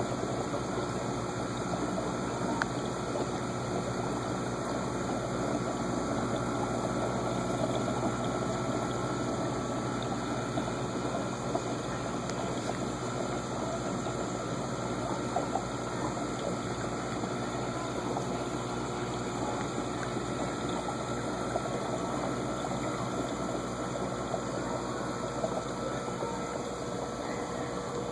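An aquarium's filter pump running steadily, with water flowing: an even rushing noise with a faint hum.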